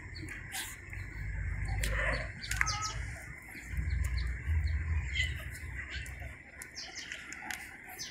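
A group of stray cats and kittens at a feeding, with many short high chirps and clicks and a brief mewing cry about two and a half seconds in. A low rumble runs through the middle few seconds.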